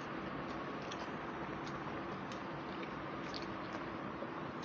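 Faint eating sounds of people eating rice and fish by hand: scattered small clicks of chewing and lip smacks over a steady low background hum.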